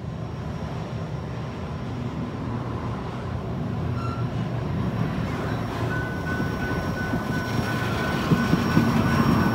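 Railroad tank car rolling slowly toward the microphone at rail level, the rumble of its wheels on the rails growing louder as it nears. A thin steady squeal sets in about six seconds in.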